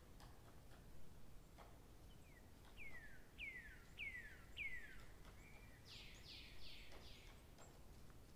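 A bird calling: a run of five clear whistles, each sliding down in pitch, followed by a few quicker, harsher downward notes, over faint scattered ticks.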